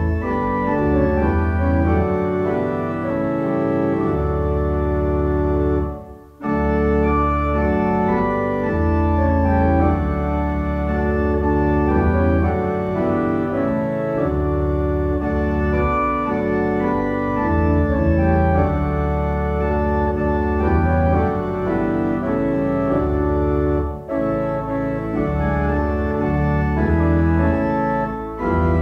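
Organ playing slow, sustained chords over a deep pedal bass, breaking off briefly about six seconds in.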